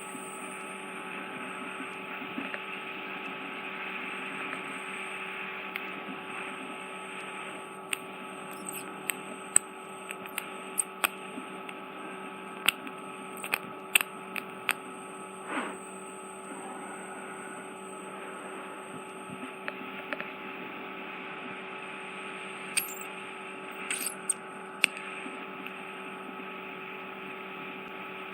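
Ear microsuction unit running with a steady hum and hiss. A scatter of short sharp clicks comes from the instrument in the middle of the stretch and again near the end.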